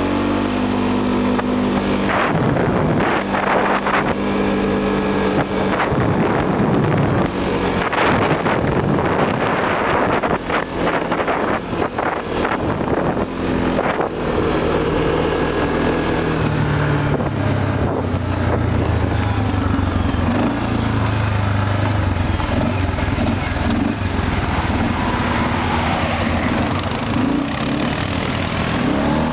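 Off-road vehicle's engine running under varying load, its pitch shifting up and down as it works over rough ground. Knocks and rattles come through in the first half.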